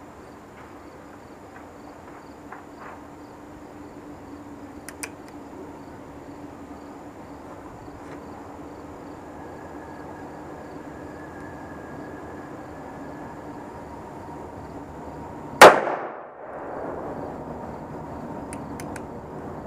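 A single shot from a Magnum Research BFR .45-70 revolver fitted with a muzzle brake. It is a very loud, sharp crack about three-quarters of the way through, followed by a brief echo.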